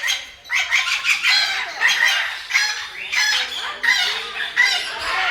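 Birds calling over one another in a quick, irregular run of short calls.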